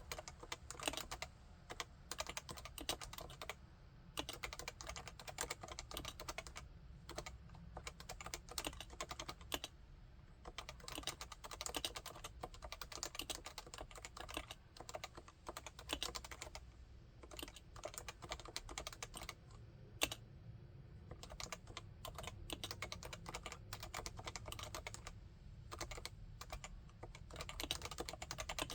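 Continuous typing on a Realforce 87UW tenkeyless keyboard with Topre electrostatic capacitive switches: fast runs of soft keystrokes, broken by a few short pauses.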